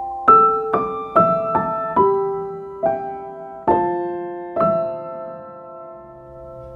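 Slow, gentle solo piano music. Single notes are struck one at a time, a little under a second apart, and each is left to ring. The last note rings on and fades through the second half.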